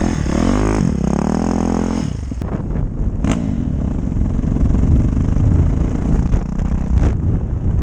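Dirt bike engine revving, its pitch rising and falling several times in the first two seconds, then running on as a steady rough drone with a few short knocks.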